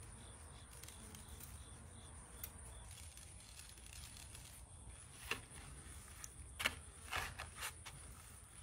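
Faint handling sounds of a bone-in rib roast being seasoned and turned on a plastic cutting board: soft rustles under steady low background noise, with a few short taps about five to eight seconds in.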